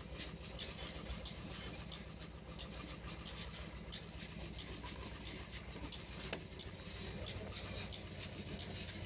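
Concrete pipe spinning machine running with a steady low hum, with scattered scraping and clicking from the steel pipe mould and wet concrete.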